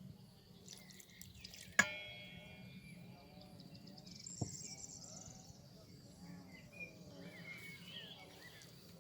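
A sharp clink that rings briefly about two seconds in, then a softer knock a couple of seconds later, with birds chirping in the background.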